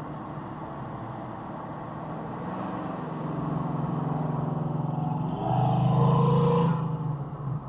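Engine and road noise heard from inside a moving car, with a pitched engine sound that slowly builds and is loudest from about five and a half to seven seconds in, then eases off.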